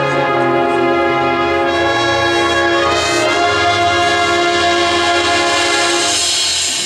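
Marching band brass section playing loud, sustained chords that shift a few times, with cymbals swelling near the end.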